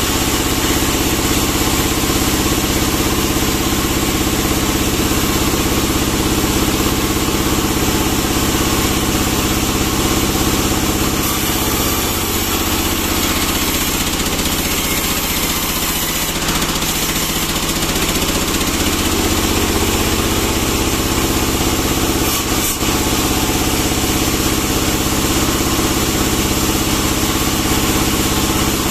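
Vertical band sawmill running steadily while a pine log is fed through the blade. For several seconds in the middle its drive note sags in pitch and then recovers, the cut loading the saw, with a single brief knock a little later.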